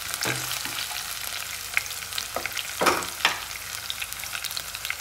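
Sliced onions sizzling and crackling in hot oil in a wok, browning for a tadka, with a few scrapes of a wire-mesh skimmer stirring them, the loudest two about three seconds in.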